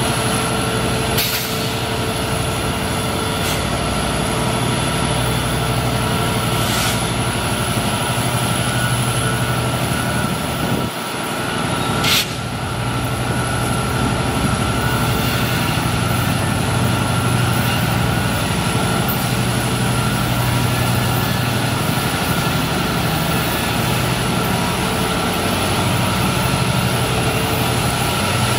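EMD GP60 diesel-electric locomotive's turbocharged V16 two-stroke engine running as the locomotive moves along the track: a steady low drone with a steady whine over it. A few sharp clicks cut through, the loudest about twelve seconds in.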